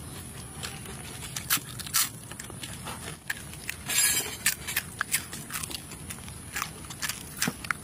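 Close-miked crunching and chewing of cooked scorpions: irregular sharp crunches, with a longer, louder crunch about four seconds in.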